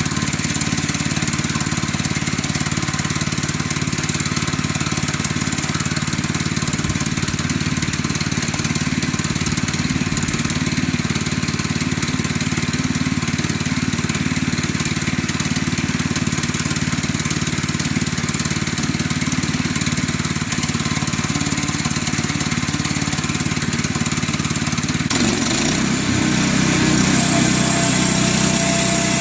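The small gas engine of a Woodland Mills HM122 bandsaw sawmill runs steadily. Near the end the pitch dips and the sound comes back louder with a high whine as the saw head is pushed into the log to cut.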